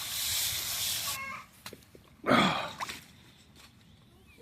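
A steady hiss that stops about a second in, then backyard poultry calling: a short call, and a louder call about two seconds in that falls in pitch, followed by a few faint chirps.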